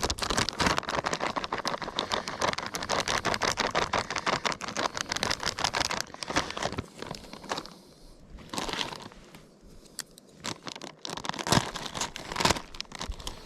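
Crinkly plastic food packaging being handled and rustled, crackling densely for about six seconds, then in separate sharper crinkles.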